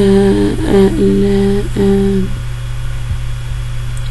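A voice holding a level hesitation hum in three stretches during the first two seconds, then stopping. A steady low electrical hum from the recording runs underneath throughout.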